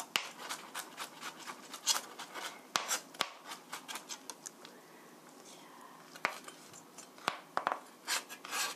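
Kitchen knife mincing garlic on a cutting board: quick irregular taps of the blade, several a second, thinning out briefly about halfway through before picking up again.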